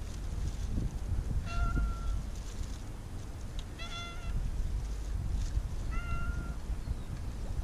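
Tabby cat meowing three times, short calls spaced about two seconds apart, over a steady low rumble.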